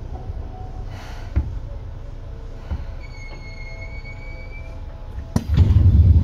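Onboard running sound of a Seibu 2000-series electric train (set 2057F): a steady low rumble. A thin, high steady tone sounds for about two seconds midway. Near the end a sharp click is followed by a much louder rumble.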